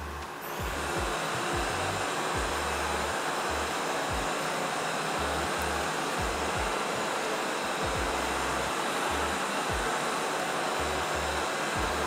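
Hosome G9070 robot vacuum's suction fan spinning up just after the start, then running with a steady airy hiss as the robot works in spot-clean mode, circling in one place.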